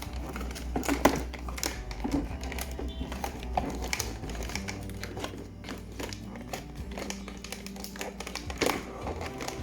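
Irregular clicks and taps of figurine packaging being handled and pulled open during unboxing, with the sharpest clicks about a second in and near the end, over soft background music.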